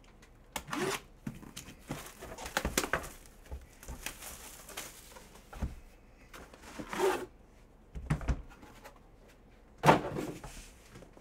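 An outer cardboard box and an aluminium card briefcase being handled on a table: rustling, sliding and scattered knocks, the loudest a sharp knock about ten seconds in, as the metal case comes into view on the table.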